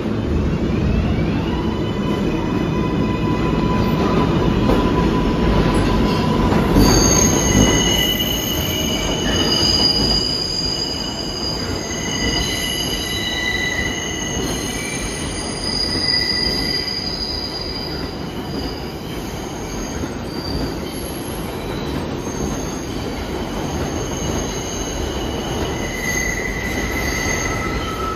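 R142A New York City subway train running, its wheels squealing on the rails in several high, steady tones that come and go from about seven seconds in. Under the squeal is a rumble that is loudest in the first eight seconds.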